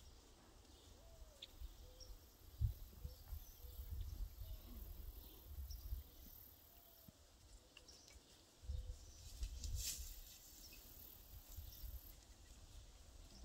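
Quiet outdoor ambience: faint, repeated bird calls and a high insect buzz over low gusts of wind on the microphone.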